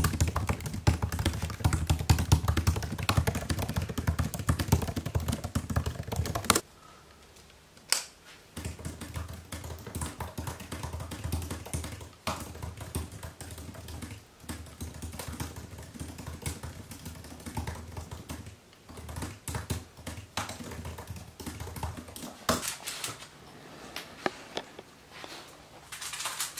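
Fast typing on a MacBook laptop keyboard: a dense, uneven patter of key clicks. It breaks off for about two seconds roughly seven seconds in and grows quieter near the end.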